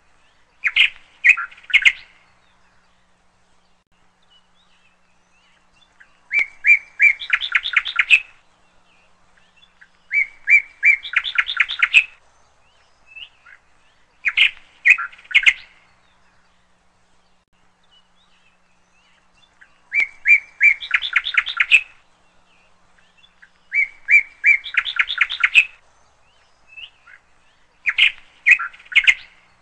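A bird singing in short phrases of quick chirps, repeated every few seconds with pauses between them. Several phrases climb higher in pitch toward their end.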